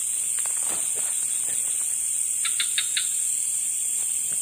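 Steady, high-pitched chorus of night insects. About two and a half seconds in, four quick clicks sound over it.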